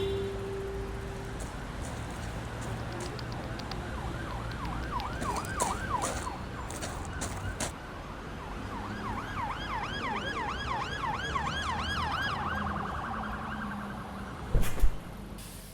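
A siren yelping in fast rising-and-falling sweeps, a few a second, in two stretches, over a steady low rumble. A couple of sudden thumps come near the end.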